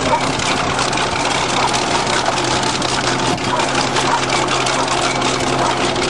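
Bulldozer's diesel engine running steadily, with a rapid clatter over its steady hum.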